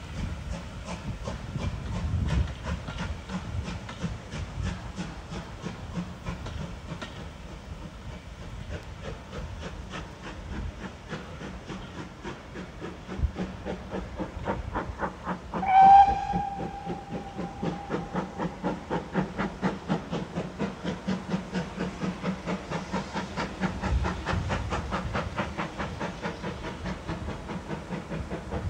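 GWR Hall class steam locomotive 4930 Hagley Hall, a two-cylinder 4-6-0, pulling away with its train: steady, regular exhaust beats (chuffing), with one short blast on the whistle about halfway through, the loudest sound.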